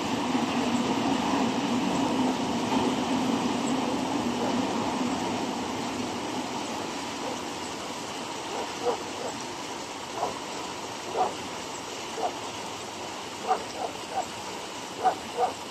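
A freight train's tank wagons rolling over the rails and a bridge, the steady rumble fading away over the first six seconds as the last wagons pass. After that, about ten short, sharp sounds come at irregular intervals over a quieter background.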